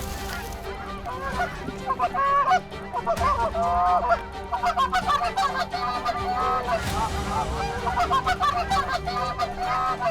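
A flock of Canada geese honking, many short calls overlapping.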